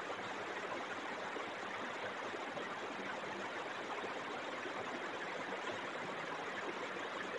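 Steady faint hiss of room noise with no distinct events.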